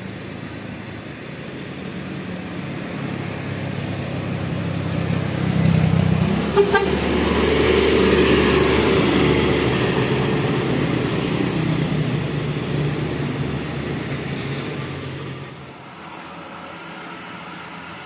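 A bus passes: its engine and road noise swell to a peak about six to eight seconds in, then fade away, and a horn sounds for a few seconds as it goes by.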